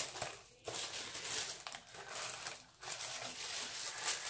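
Paper wrapping inside a subscription beauty box crinkling and rustling as it is unfolded by hand, in several spells with short pauses.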